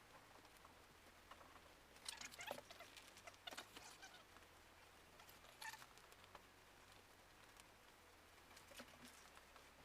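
Near silence, broken by faint, short clicks and rustles: a cluster about two to four seconds in, another near six seconds and a few more near the end.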